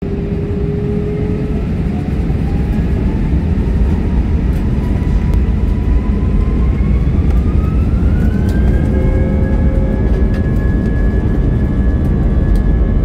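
Airliner engines spooling up for take-off, heard from inside the cabin: a whine that rises in pitch over the first nine seconds or so and then holds steady, over a loud low rumble.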